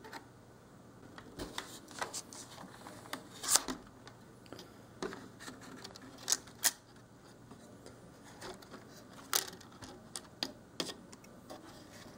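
Irregular sharp clicks and taps of plastic and circuit-board parts being handled as an HP Pavilion DV7 laptop's ribbon-cable connectors are unhooked and its motherboard is worked loose from the case. A few louder clicks stand out, several seconds apart.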